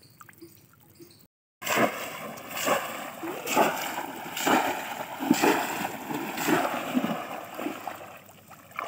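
Bamboo polo fish trap being plunged again and again into shallow muddy water, a heavy splash about once a second. Before it starts, a little over a second in, there are only a few faint drips.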